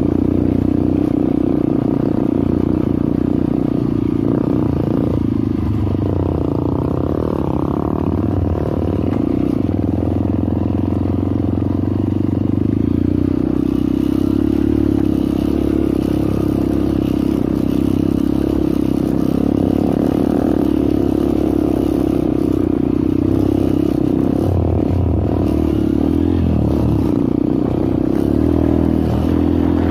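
Trail motorcycle engine running steadily while being ridden along a rough dirt track, heard from the rider's seat.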